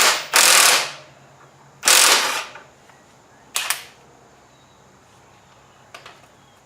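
Impact wrench with a 24 mm socket hammering the front axle nut of a Triumph Bonneville T100 loose, in short bursts: two of about half a second near the start, a shorter one around three and a half seconds in, then a faint click about six seconds in.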